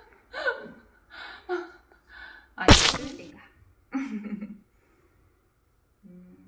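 A woman laughing in short bursts, then a single loud, sharp breathy burst about two and a half seconds in, followed by another short vocal sound and a brief low hum near the end.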